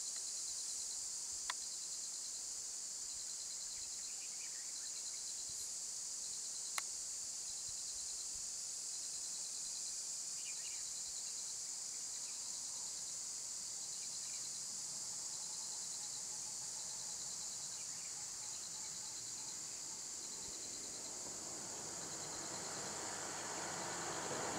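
Steady high-pitched chorus of insects with a pulsing edge, with a few faint bird chirps and two sharp clicks early on. Over the last few seconds a motor vehicle's noise rises as it approaches.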